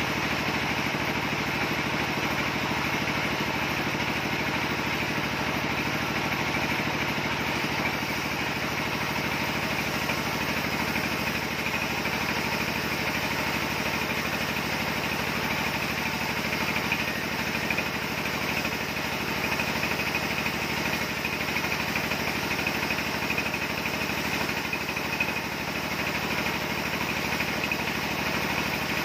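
Log sawmill running steadily as the carriage feeds a log of red mixed timber through the saw, slicing off a slab.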